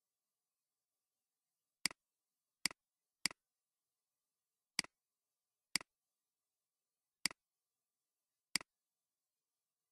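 Computer mouse button clicking seven times at uneven intervals, each click a quick press-and-release double tick.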